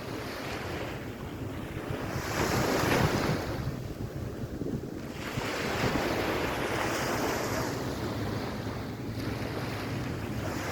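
Sea waves washing onto a sandy beach, swelling and easing twice, with wind buffeting the microphone.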